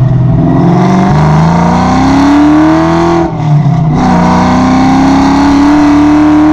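Foxbody Mustang's 5.0 small-block Ford V8 accelerating hard: the revs climb through one gear, drop at an upshift about three seconds in, then climb again through the next gear.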